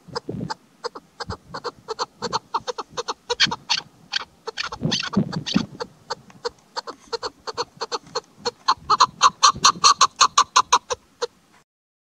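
Female chukar partridge calling: a long run of short clucking notes that come faster and louder toward the end, then stop abruptly.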